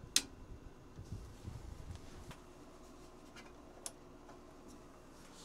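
Handling noises: one sharp click just after the start, then a few soft knocks and fainter clicks.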